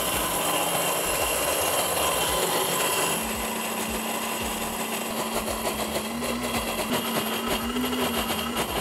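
Cornell electric blender running, churning a thick green paste of pulp, water and oil. About three seconds in its sound steadies into a slightly quieter, even hum.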